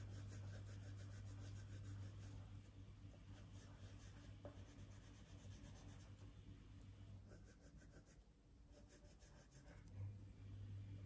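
Faint scratching of a drawing tool on paper as tree foliage is shaded in small circular strokes, over a low steady hum.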